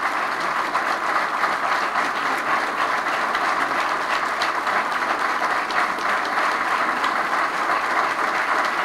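Audience applauding steadily, a dense even clatter of many hands.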